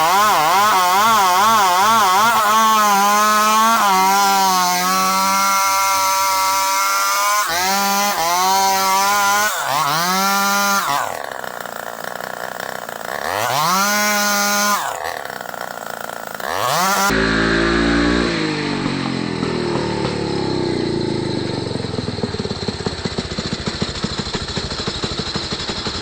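Two-stroke chainsaw running and cutting wood, its engine pitch wavering and sliding up and down under load, falling away twice as the throttle drops. About two-thirds of the way through the sound changes suddenly to a duller, steadier engine rumble.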